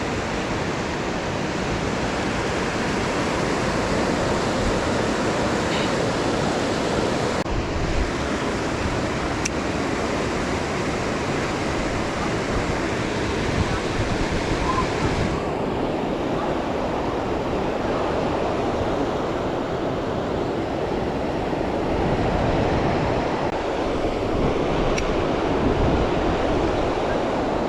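Steady rush of a mountain river's current flowing over rocks, with some wind buffeting the microphone.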